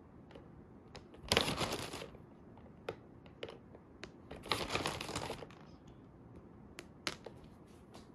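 Packaging crinkling in two short bursts as chocolate candies are taken out by hand, with scattered light clicks and taps between them as the candies are set down.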